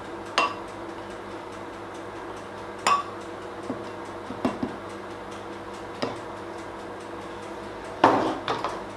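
Scattered light clinks and taps of a glass honey jar and a spatula against a glass blender jug while honey is scraped off into it, with a louder clatter near the end. A faint steady hum runs underneath.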